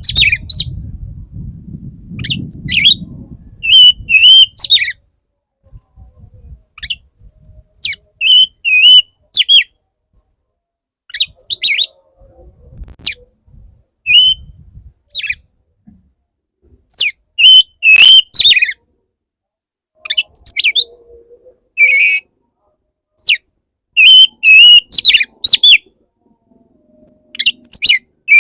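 Male oriental magpie-robin singing: loud bursts of quick, varied chirps and whistled notes, repeated every second or two with short pauses between phrases.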